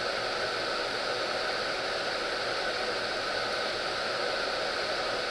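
Steady, even hiss of background noise with no distinct clicks or handling sounds.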